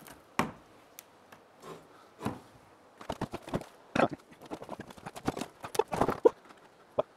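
Irregular hollow knocks and clunks of wooden boards and a metal stepladder being worked, single knocks about a second apart at first, then a quicker cluster in the second half.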